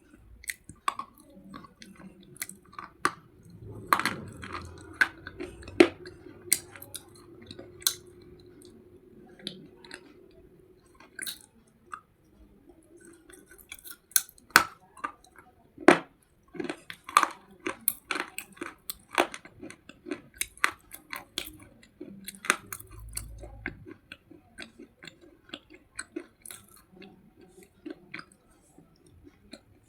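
Slate pencil being bitten and chewed close to the microphone: many sharp, irregular crisp crunches and clicks, with a short lull partway through.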